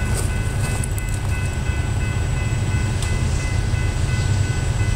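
Norfolk Southern GE AC44C6M diesel-electric locomotive approaching on the lead of a freight train, a steady low rumble.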